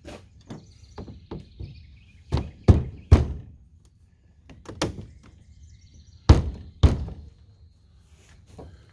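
Irregular knocks and thunks of rod-rack pipe pieces and elbow fittings being handled and knocked together. The loudest come in a cluster about two and a half to three seconds in and in a pair just past six seconds.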